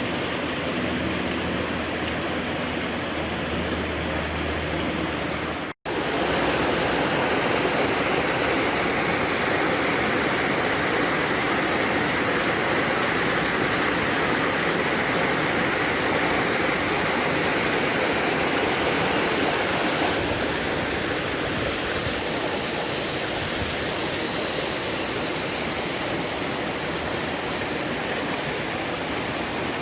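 Steady rush of falling water from a waterfall on the Little Mashel River. It breaks off for an instant about six seconds in and comes back louder, then eases slightly about twenty seconds in.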